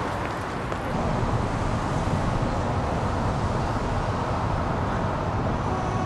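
Steady city traffic noise: an even wash of road sound with no distinct events.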